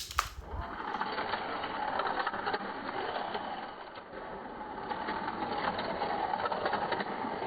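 Toy slot cars' small electric motors whirring as they run around a plastic racetrack, swelling and fading slightly in level.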